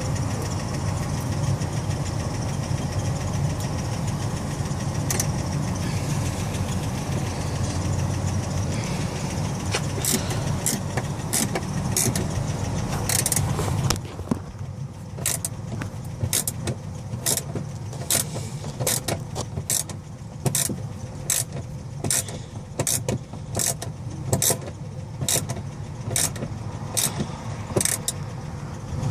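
Ratchet wrench clicking as a door handle's mounting bolt is tightened: sharp clicks about two a second through the second half, over a steady low hum that fills the first half.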